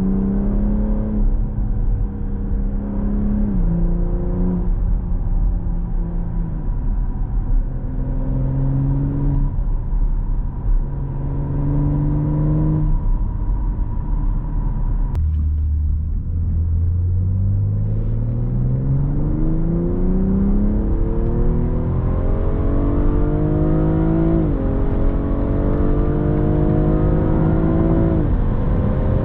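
Inside the cabin, a 2020 BMW M340i's 3.0-litre turbocharged straight-six in Sport+ mode, its pitch stepping up and down as the eight-speed automatic shifts. Past halfway the engine pulls hard from low revs in one long rising sweep, with two upshifts dropping the pitch near the end.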